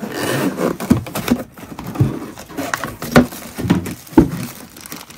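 Cardboard packing insert being worked out of a cardboard box: cardboard scraping and rubbing against cardboard, with several dull knocks, the loudest about three and four seconds in.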